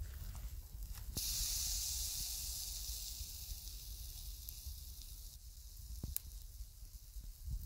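Fish and chicken skewers sizzling over charcoal on a grill: a high hiss that swells about a second in and eases off after a few seconds, with a few sharp pops.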